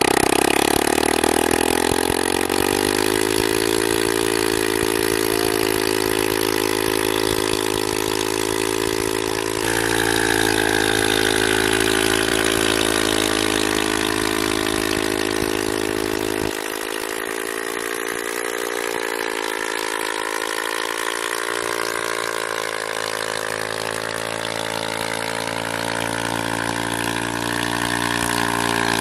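187 cc motorcycle engine running under load, driving a chain-coupled self-priming water pump. Its note rises over the first couple of seconds and then holds steady, shifting in pitch about ten seconds in and again a little past halfway.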